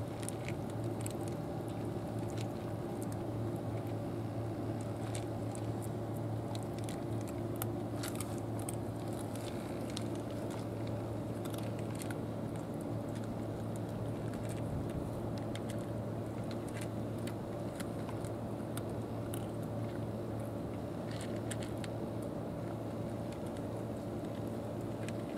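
Two cats crunching dry kibble from bowls: many small, sharp crunches scattered irregularly, over a steady low hum.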